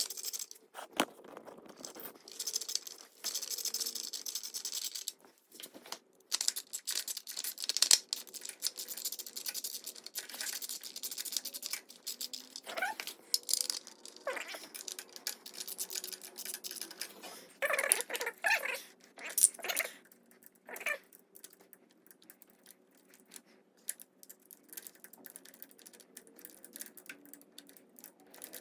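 Quick clicks and rattles of a small ratcheting screwdriver and socket driving the bolts of the motorcycle's transmission filter cover. Around the middle come several short, wavering high-pitched calls.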